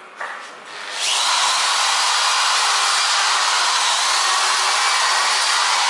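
Electric drill starting up about a second in and running steadily at high speed, with a faint high whine.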